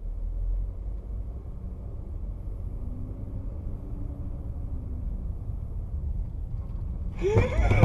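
Steady low rumble of a car's engine and road noise heard from inside the cabin through a dashcam microphone. About seven seconds in, a sudden loud commotion cuts in.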